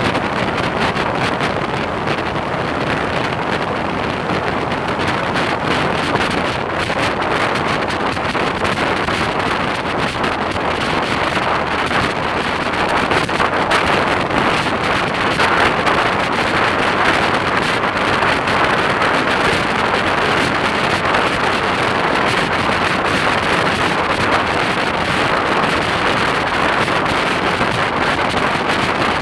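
Steady rush of wind over the camera microphone on a motorcycle riding at road speed, with the motorcycle's engine and tyre noise underneath.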